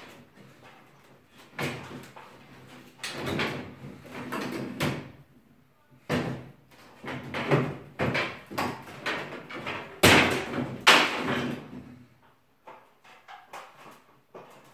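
Wooden ceiling battens and boards being struck and pried loose with a long metal bar: a run of irregular wooden knocks, cracks and rattles. The two loudest bangs come about a second apart, roughly two-thirds of the way through, and then it goes quieter.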